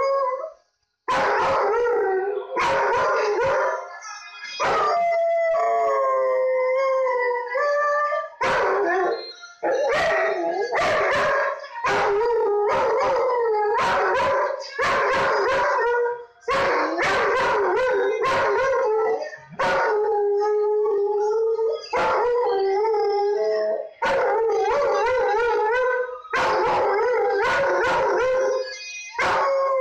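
Dog howling along to a song played from a tablet: a long series of drawn-out howls, each a second or two long, with wavering pitch and short breaks between them.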